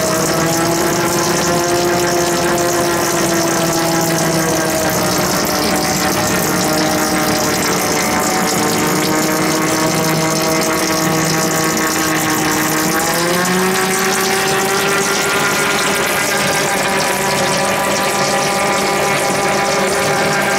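Geared headstock of a Broadbent Schofield lathe running with its cover off, the clutch partly engaged: a steady gear whine over a hiss of oil from the feed tubes splashing on the turning gears and shafts. The whine sags slightly, then rises in pitch about thirteen seconds in.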